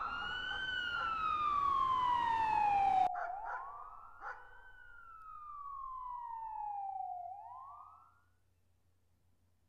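Emergency-vehicle siren wailing, its pitch rising quickly and then falling slowly. About three seconds in it drops abruptly to a quieter wail, which falls, starts to rise again and fades out about eight seconds in, leaving only a faint hum.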